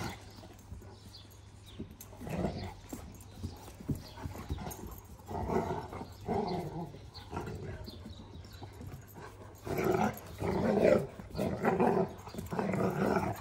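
Two Kangal puppies play-fighting, giving short, rough barks and growls in bursts that come thicker and louder from about ten seconds in.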